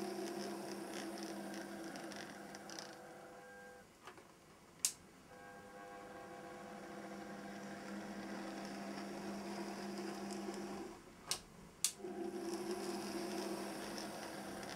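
Bachmann OO gauge model of the prototype English Electric Deltic running along the track, its motor giving a steady hum of a few held tones that dies away briefly about four seconds in and again around eleven seconds. Three sharp clicks stand out, one about five seconds in and two close together around eleven to twelve seconds.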